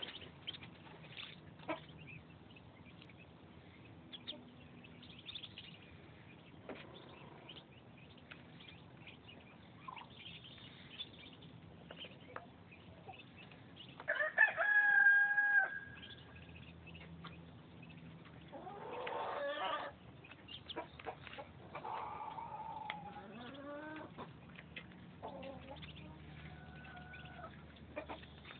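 Muscovy ducklings peeping as they feed, with short high calls and clicks scattered throughout. A louder fowl call with a steady pitch lasts about a second and a half roughly halfway through, and more calls, one gliding in pitch, follow later.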